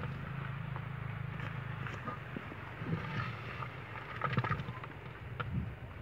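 Hands scraping and patting dry, stony soil, with scattered small clicks of pebbles and grit. A steady low hum runs underneath.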